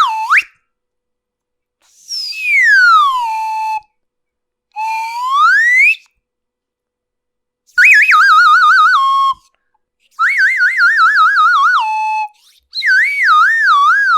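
A series of cartoon whistle sound effects, one after another with short silences between: a quick falling whistle, a long falling slide-whistle glide, a rising glide, then three warbling whistles that wobble up and down, the second one stepping downward as it wobbles.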